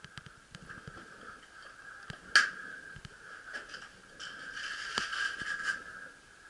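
Scuffs and light knocks of a paintball player's gear shifting inside a wooden bunker, with one sharp crack about two and a half seconds in, over a faint steady high hum.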